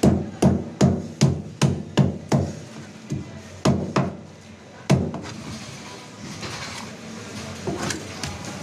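A cleaver knocking repeatedly on a wooden chopping block while scaling a bream, about two to three sharp knocks a second, then softer scraping with a few lighter knocks near the end.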